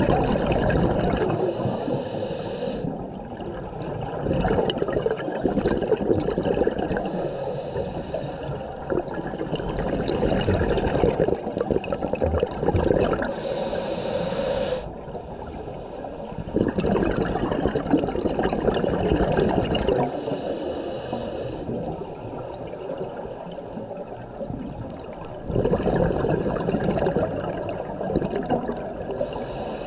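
Scuba diver breathing through a regulator underwater: a hissing inhale and a rush of exhaust bubbles, repeating every six seconds or so.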